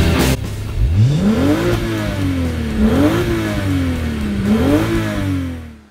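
Volkswagen Corrado's VR6 engine revved three times, the pitch climbing and falling back with each blip, reaching around 5,000 rpm. It fades out near the end. Music cuts off just at the start.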